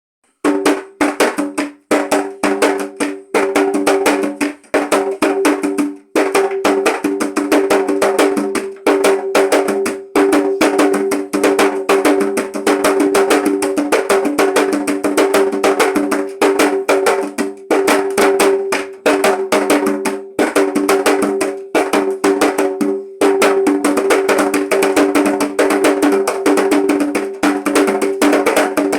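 Atabaque hand drums played in a fast, driving Umbanda rhythm of rapid sharp hand strokes over a steady ringing drum pitch. The playing starts about half a second in and pauses briefly a few times.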